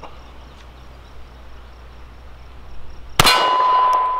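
A single shot from a Taurus G3c 9mm pistol about three seconds in, a sharp crack followed by a steady ringing tone. The pistol is firing hollow-point defense rounds to test whether it feeds them.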